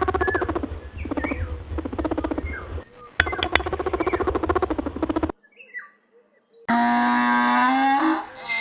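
Animal calls in quick succession. First come repeated rattling, pulsed calls for about five seconds, then a short pause, then a long steady pitched call about seven seconds in.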